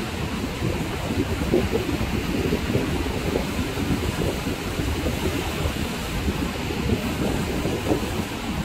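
Surf breaking and washing on a sandy beach, heard through steady wind buffeting the microphone.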